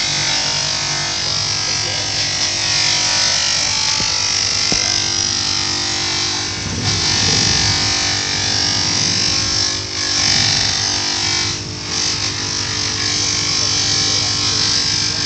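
Small bench grinder running with a steady motor hum while the metal fitting of a kukri's handle is pressed against its spinning wheel, giving a continuous high grinding hiss. The hiss dips briefly twice, about ten and twelve seconds in.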